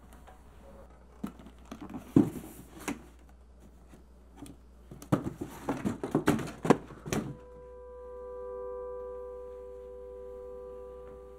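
A cardboard box being opened by hand: flaps pulled and torn open with knocks and rustling for about six seconds. Then a soft sustained music chord fades in and holds.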